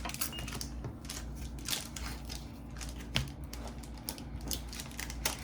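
Trading cards and a foil booster pack being handled: irregular light clicks and short rustles.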